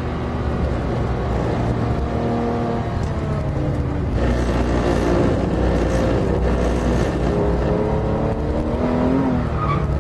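Porsche 996 GT3's 3.6-litre flat-six engine heard from inside the cabin on track, its pitch falling and rising with the throttle. It gets louder and rougher from about four seconds in.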